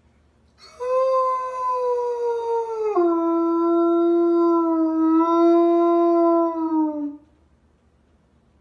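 A large white dog howling: one long howl of about six seconds that steps down in pitch about two seconds in, holds, then sags as it ends.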